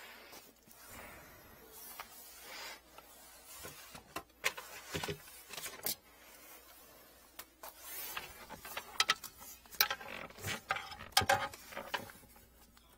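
Gloved hands handling a plastic sink drain hose and things around it under a kitchen sink: irregular clicks, rubbing and plastic rustling, busiest about four to six seconds in and again near the end.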